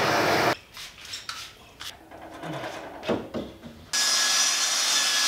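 Propane torch flame hissing against the end grain of a 4x4, cut off abruptly about half a second in. Then come a few quiet knocks and rubs of the wood being handled. Near the end the chop saw starts running with a steady high hiss.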